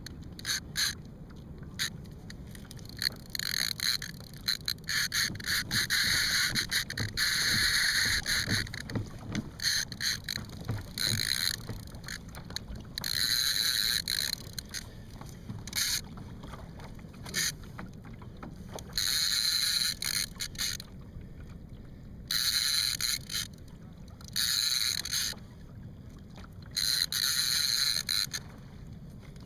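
Baitcasting fishing reel whirring in repeated bursts of one to two seconds, with scattered clicks and handling knocks between the bursts.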